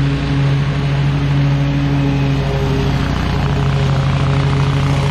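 DEWALT X548 stand-on zero-turn mower's 26 hp Kawasaki EFI engine running steadily as the mower drives across the lawn, a steady low engine hum.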